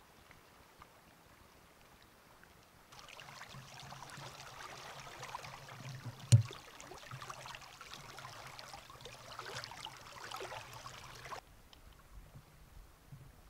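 Stream water running and trickling close to the microphone, starting about three seconds in and cutting off abruptly near the end. A single sharp knock, the loudest sound, comes about halfway through.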